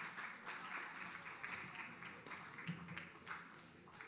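Audience applauding, a dense patter of many hands clapping that thins out and fades toward the end.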